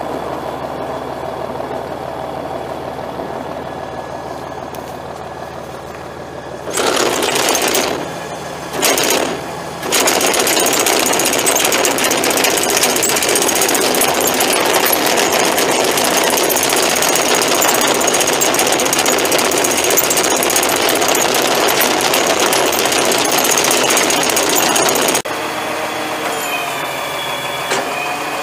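Kenworth T440 feed mixer truck's diesel engine idling steadily. About seven seconds in, a much louder, rough mechanical noise comes in twice briefly, then runs steadily and stops abruptly near the end.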